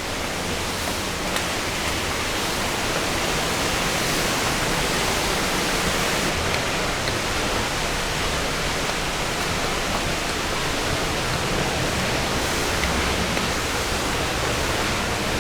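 Waterfall rushing in a steady, unbroken wash of noise.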